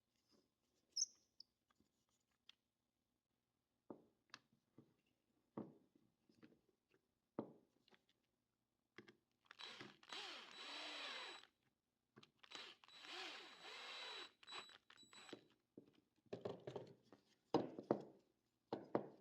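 Workshop handling sounds: wooden parts knocking and tapping, with a small power tool running in two spells of about two and three seconds, each with a steady high whine.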